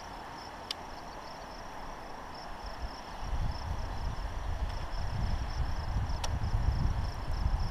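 Insects chirring in a steady, high, even drone. There are two sharp clicks, one about a second in and one near the end, and a low rumble on the microphone builds from about three seconds in.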